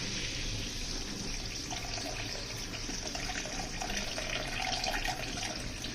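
Water added to a hot pan of fried turmeric paste, hissing and bubbling steadily.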